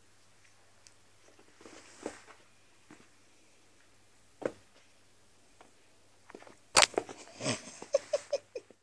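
Whippet puppy playing on carpet around a plush pet bed: faint scuffles and soft knocks, then near the end a loud knock close to the microphone, followed by rustling and a quick run of short squeaky sounds.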